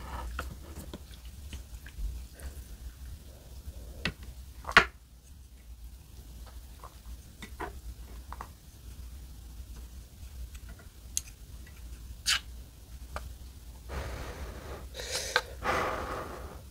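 Chopsticks clicking and knocking against an aluminium ramen pot and a bowl as noodles are lifted out, then, about 14 seconds in, breathy blowing on the hot ramen noodles to cool them.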